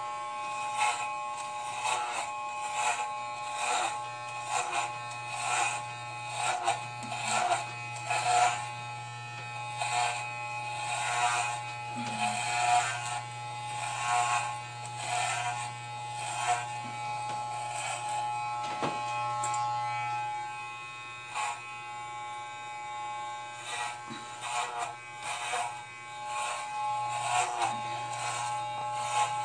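Electric hair clippers buzzing steadily, with repeated rasping strokes as they are pushed through long hair to shave the head.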